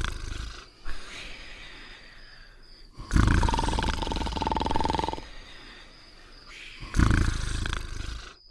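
Cartoon dogs snoring: a loud snore about every four seconds, each carrying a steady high tone, with quieter breathing between them.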